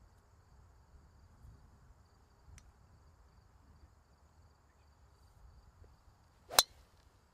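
Golf club striking a ball once: a single sharp crack near the end, just after a short swish of the swing, over faint outdoor background.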